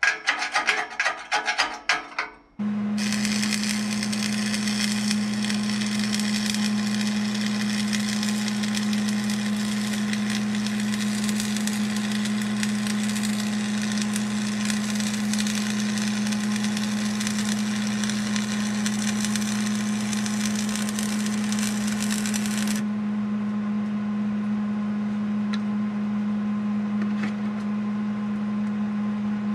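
Stick-welding arc burning 7014 electrodes at high amperage, a steady crackling sizzle as a steel chain hook is welded onto the tractor's pallet forks. It runs about twenty seconds and cuts off suddenly when the arc is broken. A steady low hum continues underneath, and a brief rapid rhythmic clatter comes before the arc strikes.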